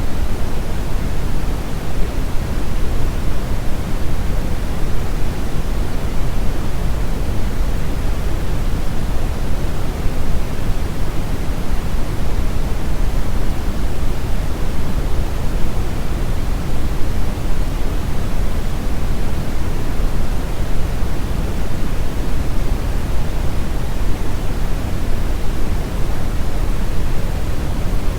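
Steady, loud pink noise: an even, unchanging hiss with the most energy in the low end, fading toward the treble.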